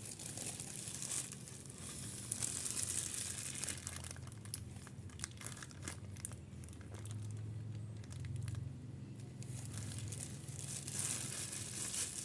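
Flushing fluid being forced through a refrigerator's clogged refrigerant line, hissing and spattering irregularly out of the open pipe end with thick old oil residue. A low steady hum runs underneath.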